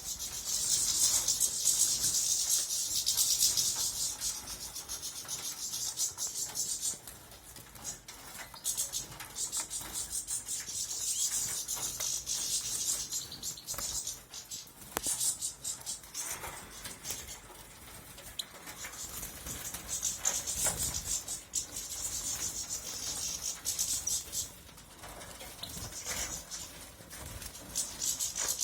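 European goldfinch singing: rapid, high twittering song in phrases of a few seconds each, with short quieter gaps between them.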